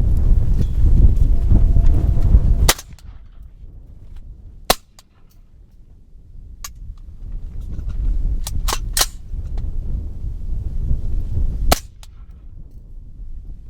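Semi-automatic rifle firing subsonic 300 Blackout rounds: two sharp shots about seven seconds apart, with fainter metallic clicks between them. Wind rumbles on the microphone for the first few seconds.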